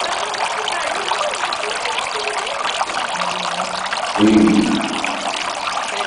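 Tabletop fountain water trickling steadily into its basin, with faint voices in the background. About four seconds in comes a brief, louder low sound.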